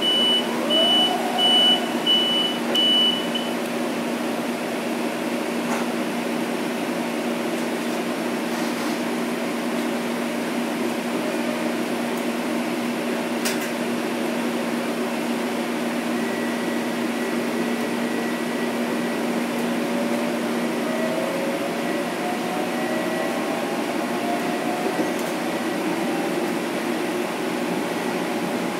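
Inside a Metro-North M7 electric multiple unit: a run of high beeps in the first few seconds, then a steady hum. From about two-thirds of the way in, several rising whines come from the Mitsubishi Electric IGBT inverter and AC traction motors as the train picks up speed.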